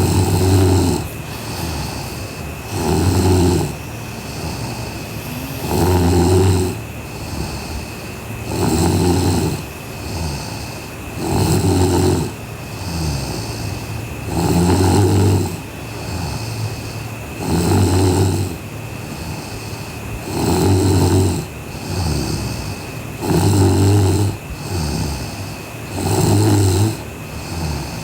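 A sleeping young woman snoring in a slow, even rhythm: a loud snore about every three seconds, about ten in all, with softer breathing between. A faint steady high whine runs underneath.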